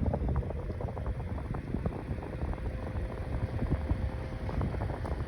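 Mainstays 9-inch box fan running on medium speed: a steady rush of moving air with a faint hum.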